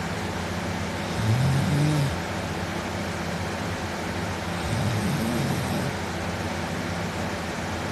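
A sleeping man snoring, two drawn-out snores about three and a half seconds apart, each lasting about a second, over a steady background hiss.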